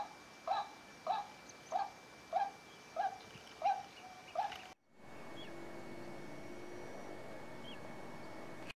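Common moorhen calling: eight short calls in a row, one about every 0.6 s. The calls stop suddenly nearly five seconds in, leaving a steady low outdoor background with two faint chirps.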